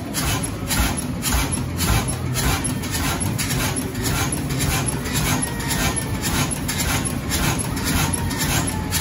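A vintage stationary engine running steadily, with a regular beat of about three strokes a second over a low rumble.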